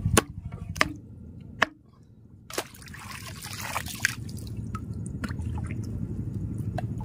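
A few sharp knocks in the first couple of seconds, then water splashing, followed by dripping and small trickling ticks.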